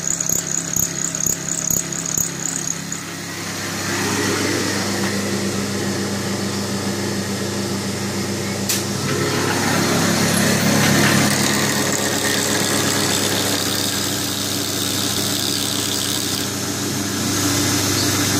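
Small benchtop milling machine and mini lathe cutting aluminium: a steady motor hum with cutting noise. For the first three seconds a light high ticking repeats about three times a second.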